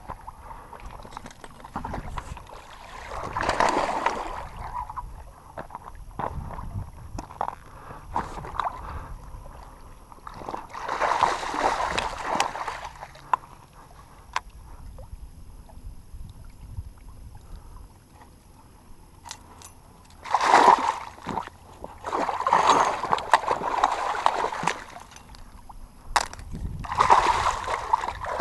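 Water splashing in several separate bursts of a second or two each: a hooked muskie thrashing at the surface as it is fought in.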